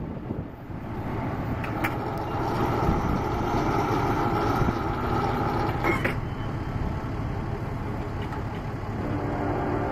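Road traffic: motor vehicles running along the street by the railroad crossing, a steady mixed rumble with two brief clicks, about two seconds in and again about six seconds in.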